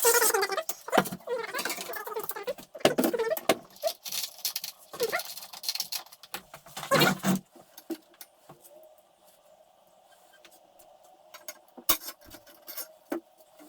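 Metal hardware clinking and rattling as it is handled, with a few short squeaks. After about seven seconds it drops to scattered light clicks over a faint steady hum.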